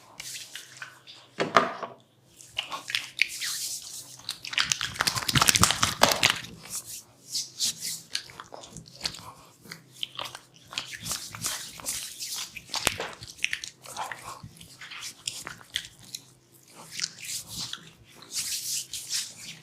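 A barber's hands massaging close to the microphone, making dense, irregular crunchy crackling and rubbing sounds, loudest about five to six seconds in.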